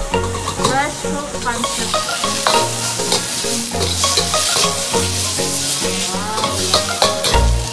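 Noodles sizzling in a steel wok over a gas burner, with a metal ladle scraping and clanking against the wok as they are stir-fried. Music plays underneath.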